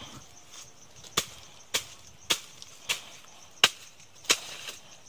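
Machete chopping into brush and stems: six sharp strikes, about one every 0.6 seconds.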